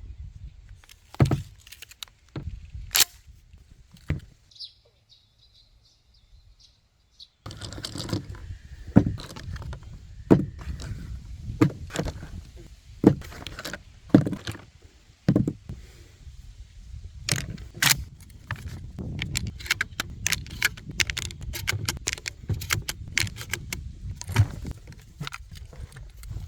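Mossberg 500B 16-gauge pump shotgun being handled, its pump action worked: an irregular run of sharp metallic clicks and clacks, with a short quiet stretch about five seconds in.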